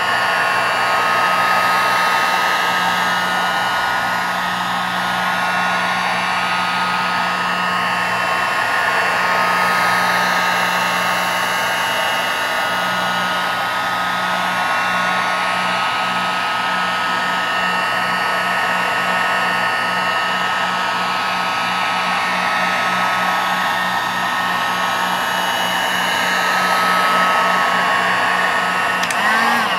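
Heat gun running steadily, blowing hot air along a laptop's plastic display bezel to soften the adhesive that holds it. Its fan whine is steady, then dips and cuts off suddenly just before the end as it is switched off.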